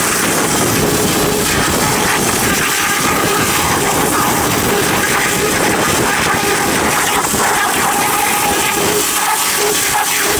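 Pressure washer spraying: a steady hiss of the high-pressure water jet, with a faint steady machine hum underneath.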